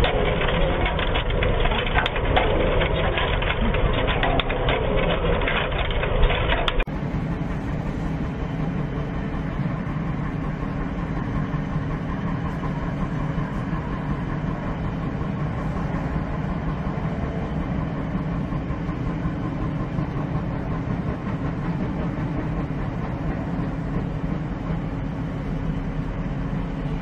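Heavy vehicle engine noise: a loud, rough running for the first several seconds, then an abrupt change about seven seconds in to a steadier, lower engine drone with a constant hum.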